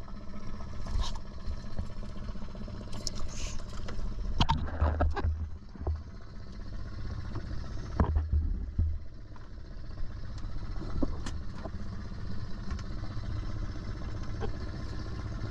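A boat's motor running steadily, with a few knocks and short bursts of clatter, the loudest about four and a half and eight seconds in.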